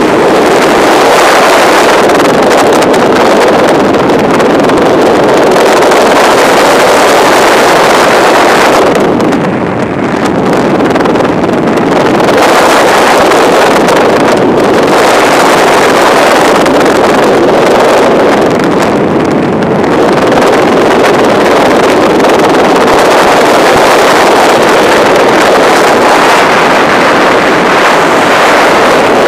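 Loud, steady rush of freefall wind buffeting a helmet-mounted camera's microphone at terminal velocity, easing briefly about ten seconds in.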